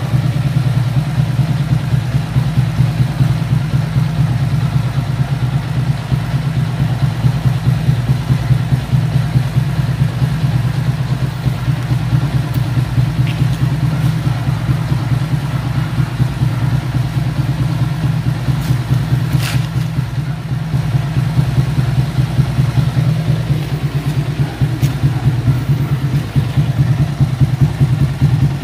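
Yamaha Sniper MX135 single-cylinder four-stroke engine, bored out to 177cc and fitted with a Kalkal aftermarket exhaust pipe, idling steadily during a morning warm-up.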